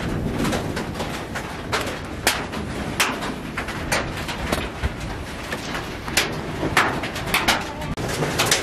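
Wood and charcoal cooking fire crackling, with irregular sharp pops about two a second, over a steady hiss of rain.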